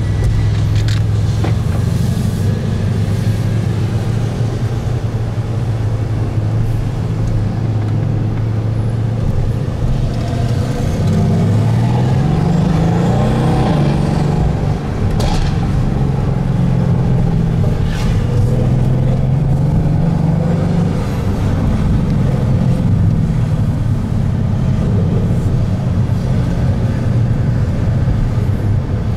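Twin-turbo V8 of a tuned Mercedes-AMG C63 S heard from on board, running at a steady engine speed. In the middle the revs climb for a couple of seconds, then drop back and hold steady again, with a couple of short sharp clicks soon after.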